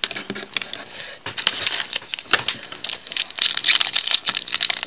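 Trading cards and a foil card-pack wrapper being handled: dense, irregular crackling and rustling that grows busier near the end.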